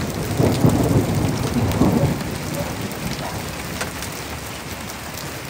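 Thunderstorm: steady rain with scattered close drop hits, under a low rumble of thunder that fades about two seconds in.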